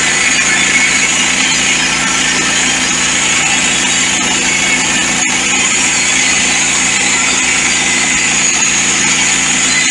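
Woodland Mills portable sawmill's engine running steadily at constant speed, with no change in pitch or level.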